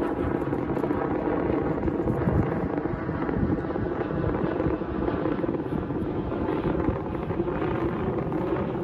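A steady low engine rumble with a faint droning hum above it.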